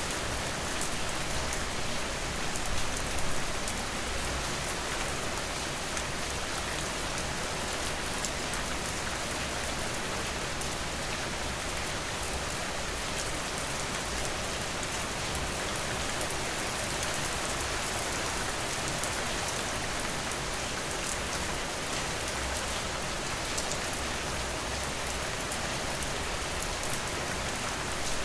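Steady rain falling, an even hiss with scattered sharp drop ticks throughout and a slight swell in loudness about three seconds in.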